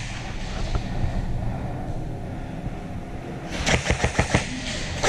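Airsoft gunfire: a quick burst of sharp, rapid cracks about three and a half seconds in, over a steady low background hum.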